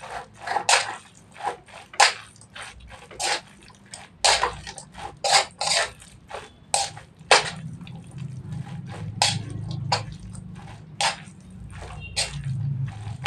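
Metal spoon scraping and clinking against a wok as a panful of mie tek-tek noodles is stirred and tossed, in irregular strokes about twice a second.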